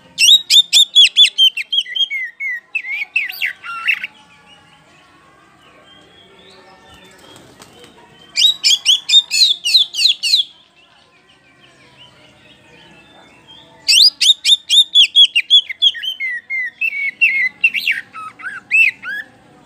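Oriental magpie-robin of the kacer poci type singing loud song in three bouts. Each bout is a rapid run of sharp, high, falling notes, about five a second, that ends in lower slurred phrases.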